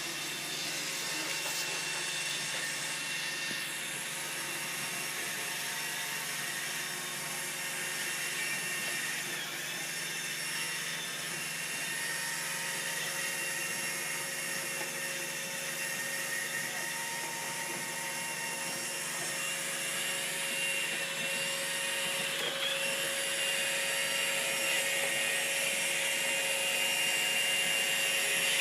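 Robot vacuum cleaner running: a steady motor whine with several fixed tones over its suction and brush noise, growing a little louder over the last several seconds.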